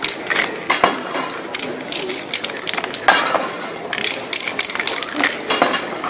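Metal aerosol spray-paint cans being handled and worked against the poster: a run of sharp clicks and clinks, with a short hiss about three seconds in. Crowd chatter murmurs underneath.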